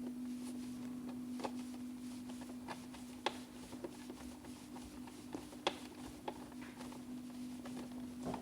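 Small screwdriver clicking and scraping as the little screws of a telephone socket are driven in: scattered light clicks, two sharper ones a few seconds apart. A steady low hum sits underneath.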